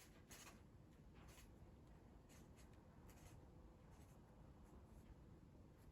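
Near silence with faint, irregular scratching and rubbing: multimeter probe tips scraping across the pins of an engine wiring-harness connector and the harness being handled.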